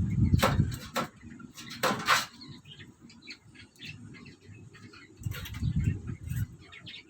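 Handling noise from working on an opened electric kettle: low rubbing rumbles with a few sharp clicks and scrapes in the first couple of seconds, and more rubbing a little past the middle. Small birds chirp faintly in the background.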